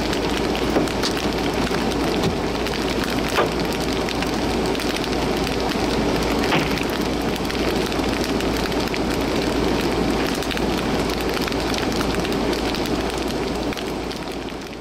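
Steady rain falling, with scattered sharper drop hits crackling over it; it fades out near the end.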